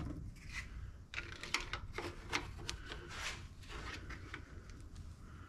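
Light clicks and rubbing from handling the oil dipstick of a Toro 452cc mower engine, as it is seated in its tube and drawn back out to read the oil level after filling.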